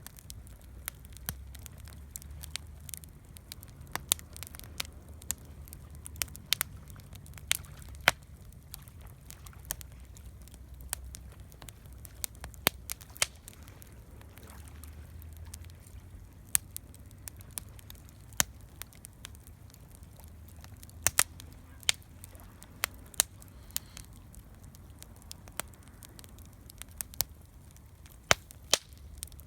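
Wood campfire crackling, with sharp irregular pops, some much louder than others, over a low steady rumble.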